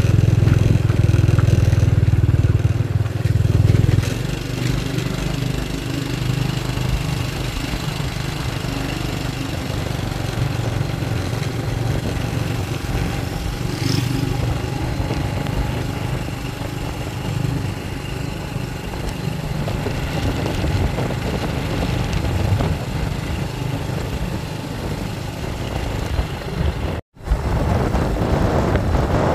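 Motorcycle running while being ridden along a road, heavier and deeper for the first four seconds, then steadier. The sound drops out completely for a moment near the end.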